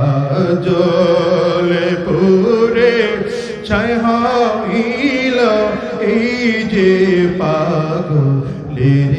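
A man singing an eshker gojol, a Bengali Islamic devotional song of divine love, in long held notes with wavering, ornamented runs.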